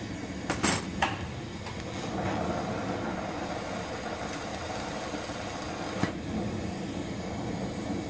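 Glassblowing bench torch flame burning with a steady rush, with a few sharp clicks and clinks of glass and tools about half a second to a second in and once more about six seconds in.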